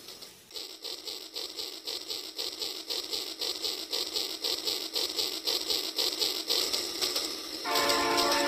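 Rail King toy steam train running with a steady rhythmic chug of about five beats a second. Near the end its whistle sounds, held and with several tones at once.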